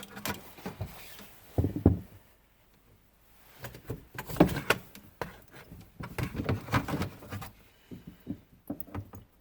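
Intermittent knocks and clatter of hand tools and metal parts being handled in a car trunk during battery replacement, in several short bursts with a brief lull about two seconds in.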